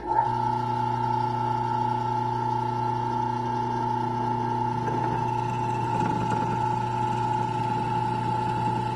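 Benchtop drill press switching on and running with a steady motor hum while its bit bores a counterbore hole into a pine 2x2 furring-strip brace.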